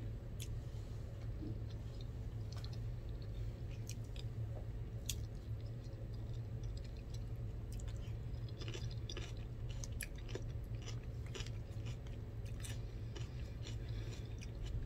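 A person chewing and eating mouthfuls of spaghetti and cucumber, onion and tomato salad close to the microphone, with scattered small clicks from the fork and container, more of them about halfway through. A steady low hum runs underneath.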